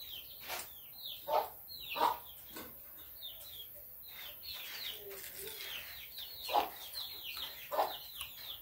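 Birds chirping in quick runs of short, falling chirps, with a few louder, sharp calls mixed in.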